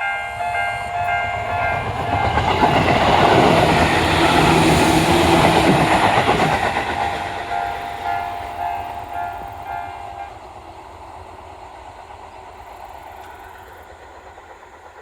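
Japanese level-crossing warning bells ringing in a rapid repeating pattern while a Tobu Tojo Line electric train passes, loudest about three to six seconds in. The bells stop about ten seconds in and the train's sound fades away.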